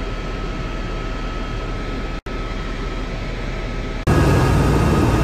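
Helicopter cabin noise in flight: a steady drone of engine and rotor with a steady whine over it. It drops out for an instant about two seconds in, and about four seconds in it jumps noticeably louder.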